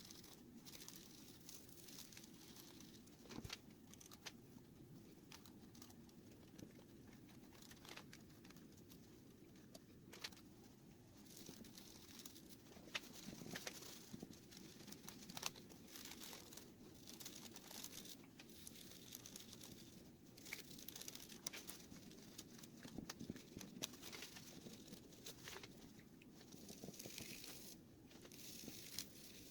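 Faint rustling and rubbing handling noises with many scattered small clicks, over a low steady hum.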